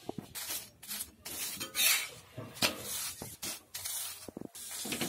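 Oil being spread over a roti on a hot iron tawa with a wiping pad: a series of irregular rubbing, scraping strokes.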